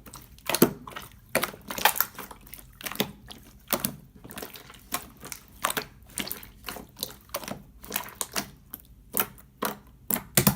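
Clear slime being squeezed and pressed by hand, giving a run of irregular sharp clicks, a few each second.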